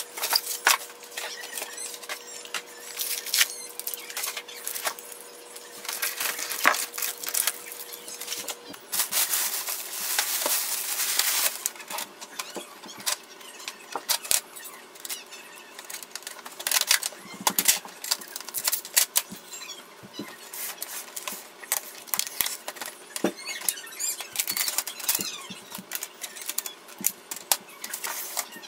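Unpacking a printer by hand: plastic wrapping and polystyrene packing rustling and squeaking, with frequent clicks and knocks as the printer's plastic covers are handled. A longer dense rustle comes about nine to twelve seconds in.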